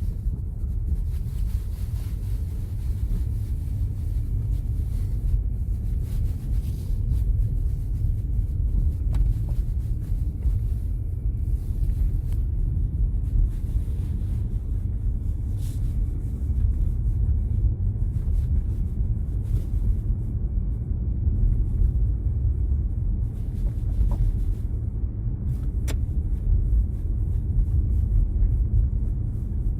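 Steady low road rumble of a car being driven, with occasional sharp, ringing knocks from the rear suspension.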